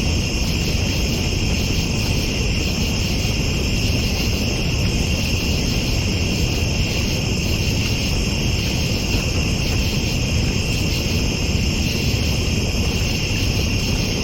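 Crickets trilling in a steady night chorus over a continuous low rumble.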